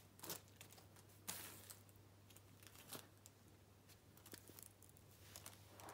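Near silence: a few faint rustles and small clicks of a little plastic doll and its clothes being handled, over a low steady hum.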